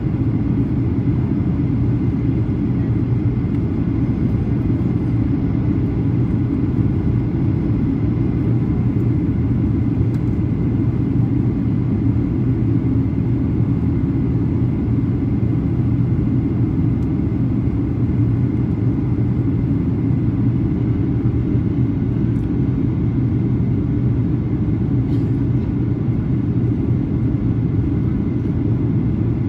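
Steady low drone of a Boeing 737-800 heard from inside the passenger cabin: its CFM56 engines and the air rushing past the fuselage, with faint steady tones above the rumble.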